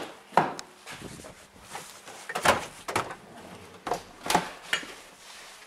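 Scattered sharp knocks and clicks, about six in all, from a hand working a car door and from the handheld camera being moved about.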